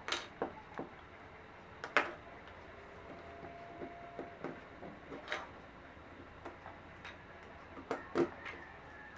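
Irregular clicks and knocks of small parts being handled while the clamp is removed from a small low-cost ceiling fan; the loudest knocks come about 2 s in and near the end.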